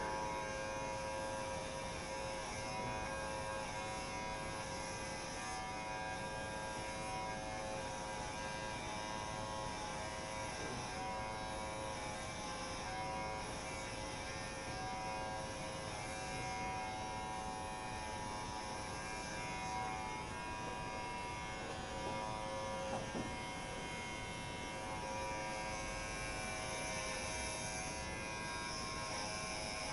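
Electric shaver buzzing steadily at an even pitch as it is passed over a stubbled scalp to shave the head.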